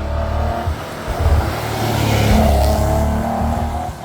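A rally car passing at speed with its engine revving hard, the sound building to a peak a little past halfway, then falling away near the end.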